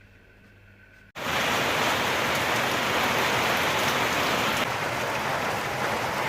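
Heavy downpour of rain, a steady dense hiss that starts abruptly about a second in after a quiet moment.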